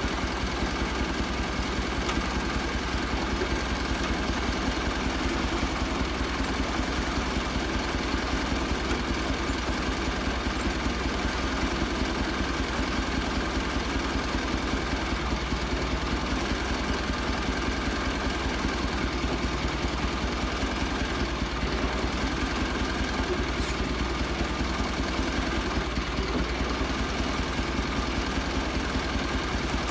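A sawmill's engine running steadily at an even speed, with no change in pitch or load.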